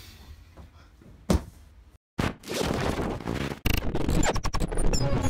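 A single dull thunk about a second in. After a moment of dead silence, an edited intro sound effect starts: a dense noisy rush with sharp hits, leading into the intro music.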